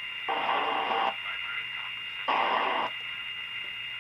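Caprice AM radio's speaker giving off static hiss with a steady high-pitched whistle, and two short bursts of crackling noise: the set is sitting between stations or on a weak signal.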